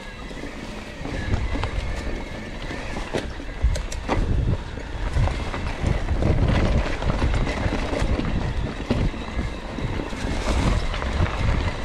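Wind buffeting the microphone and rolling noise from an e-bike ride over rough ground, with scattered knocks and rattles from the bike.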